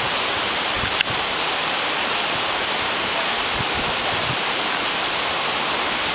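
Waterfall pouring steadily into a pool, a full, even rush of water from a fall running strong after heavy rain. One brief click about a second in.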